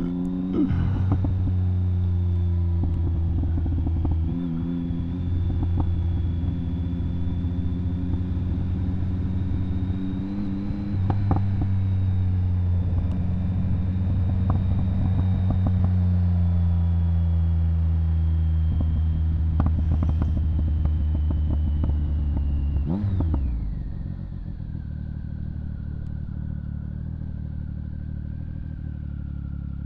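Motorcycle engine running at steady cruising revs under the rider. The note dips briefly a few seconds in and picks up again about eleven seconds in. Near the end the revs fall sharply and the engine goes quieter.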